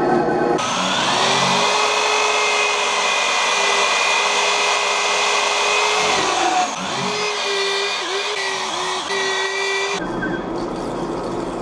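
Electric hand drill boring into an aluminium part. Its whine rises as it spins up about half a second in and then runs steady. After about six seconds its speed dips and recovers several times, and about ten seconds in the whine stops, leaving a rougher running noise.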